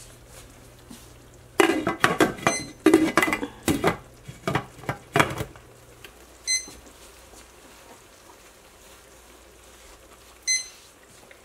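Cookware clattering on the stovetop as a glass lid is set onto a stainless steel stockpot, a burst of knocks and clanks lasting a few seconds. Then a digital cooking thermometer that was left switched on beeps briefly twice, about four seconds apart.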